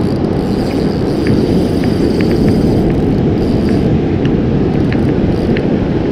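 Wind buffeting the microphone in a steady low rumble, mixed with the wash of surf, with faint scattered ticks above it.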